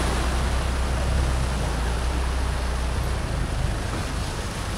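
A 4x4's engine running steadily over the rush of a shallow river; the low engine hum eases off about three and a half seconds in.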